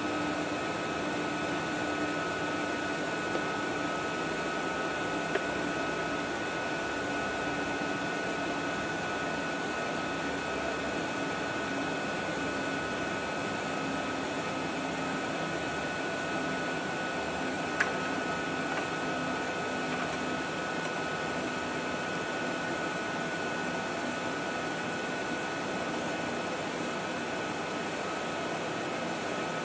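Steady mechanical drone of machinery noise with constant high whining tones, unbroken throughout, with a couple of faint brief clicks.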